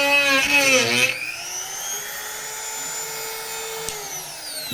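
Handheld rotary tool with a grinding bit shaving down plastic, its motor whine wavering and dragged lower under load. About a second in, the bit comes off the work and the tool runs free at a steady, higher pitch.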